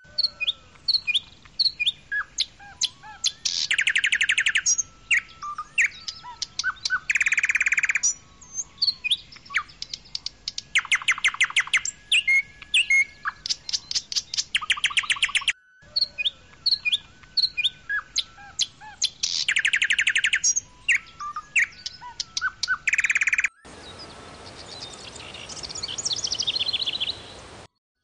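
Small songbird singing: quick chirps and whistles broken by loud, fast rattling trills, the same run of song heard twice. Near the end it gives way to a fainter twittering song over a steady hiss.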